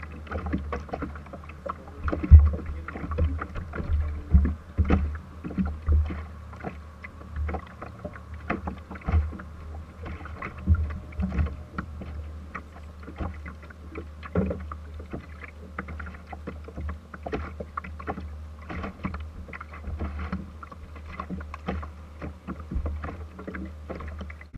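Small boat sitting on the water with a steady low rumble and irregular knocks and thumps through the hull and deck as people shift about. The loudest thump comes about two seconds in.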